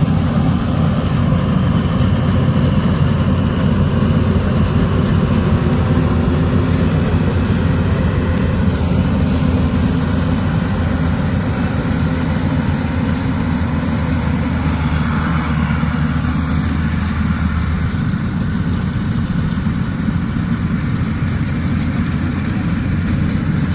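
Diesel engine of a Yanmar AW82GV combine harvester running steadily at a constant speed, with a low, even drone.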